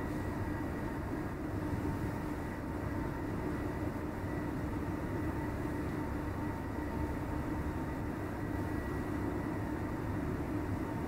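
Steady low rumbling noise with a faint even hum, unchanging throughout.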